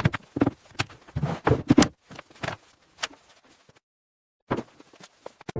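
A run of short, irregular knocks and thuds, several close together in the first three seconds, then a pause of about a second, then a few more near the end.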